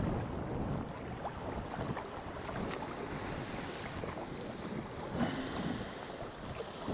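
Small waves lapping and splashing against shoreline rocks, with wind buffeting the microphone. A short, sharper noise comes about five seconds in.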